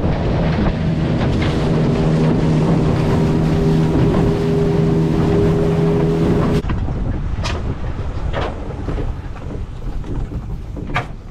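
A small boat's motor running steadily under way, with wind buffeting the microphone. About two-thirds of the way in the engine sound cuts off abruptly, leaving softer wind noise with a few sharp knocks.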